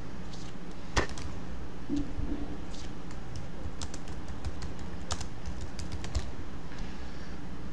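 Typing on a computer keyboard: irregular key clicks, one sharp one about a second in and a run of quicker keystrokes in the middle, over a steady low hum.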